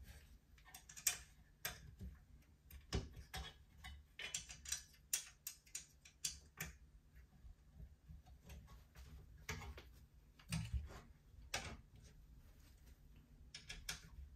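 Irregular light clicks and taps with no steady rhythm, and a duller knock about ten and a half seconds in.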